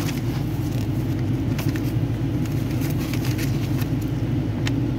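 Steady low mechanical hum, with a few light crinkles of paper as a note is drawn out of a padded mailer.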